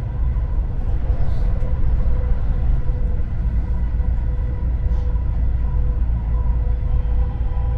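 Dubai Metro Red Line train running along elevated track, heard from inside: a steady low rumble with a faint, steady whine.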